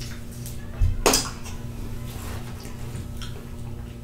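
A hot sauce bottle being handled and opened: a few short clicks and knocks, the loudest about a second in.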